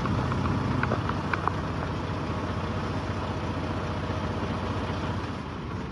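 Truck engine idling steadily, with a few faint ticks in the first second or so.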